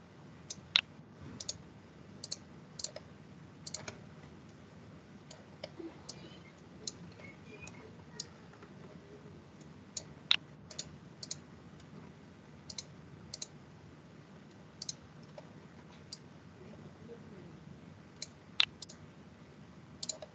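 Scattered, irregular clicks of a computer mouse as blocks are dragged and dropped, three of them much louder than the rest.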